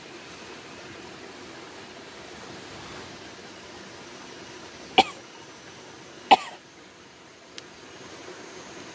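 A person coughing twice, two short sharp coughs about a second and a half apart, over a steady hiss, with a faint click soon after.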